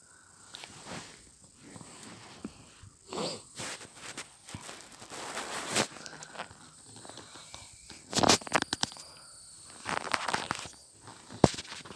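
Irregular rustling and scraping close to the microphone, with a few sharp knocks, the loudest a little past the middle and another near the end.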